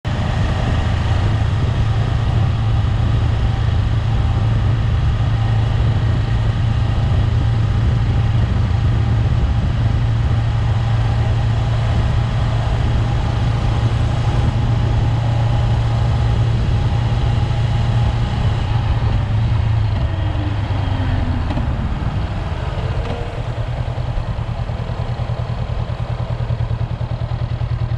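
Honda 400X motorcycle's 399 cc parallel-twin engine running steadily under way, with wind and road noise. About twenty seconds in the engine eases off with a falling tone, then steadies again.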